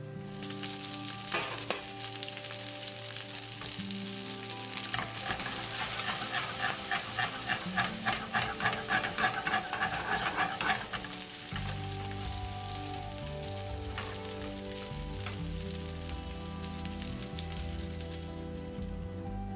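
Food sizzling in a hot frying pan. For several seconds in the middle, a utensil stirs and scrapes the pan in a quick rhythm of about three strokes a second.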